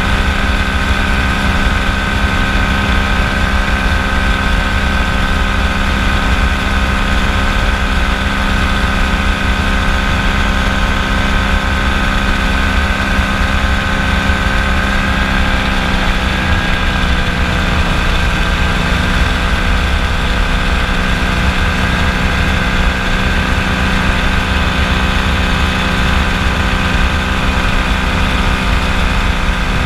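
Kolb FireFly ultralight's engine and propeller running steadily in flight, a constant multi-tone drone whose pitch settles slightly lower about halfway through.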